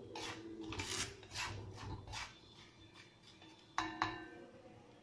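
Wooden spatula scraping and stirring chickpeas through hot salt in a heavy-bottomed kadai, with several rasping strokes in the first two and a half seconds, then two sharp clicks about four seconds in.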